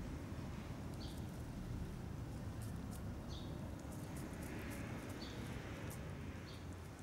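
Two tabby cats eating wet cat food from a sachet: faint, scattered chewing and lapping clicks over a steady low outdoor rumble. A bird chirps briefly four times.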